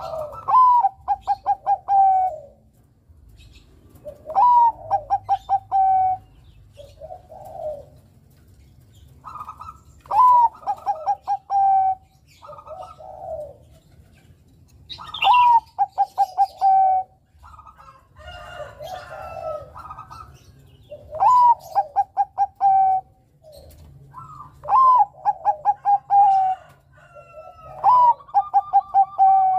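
Zebra dove (perkutut, Bangkok strain) singing its cooing song: each phrase is a rising-then-falling opening note followed by a quick run of short staccato coos. About seven phrases come roughly every four to six seconds, with softer low coos between them.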